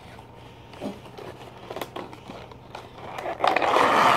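Handling of a small cardboard product box: light taps and clicks, then from about three seconds in a louder crinkling rustle of clear plastic packaging as the phone stand is pulled out of the box.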